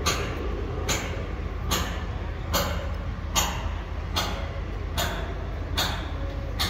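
Evenly spaced hammer blows on steel, about one a second, as a connecting pin is driven into a roller coaster track segment. A steady low engine drone runs underneath.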